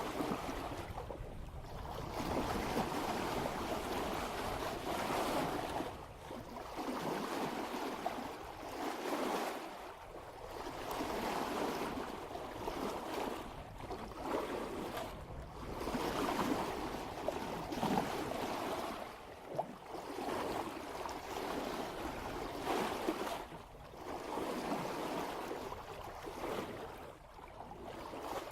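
Water rushing and splashing along the bow of a sailboat moving at about 3 knots, swelling and easing every few seconds as the hull meets each swell.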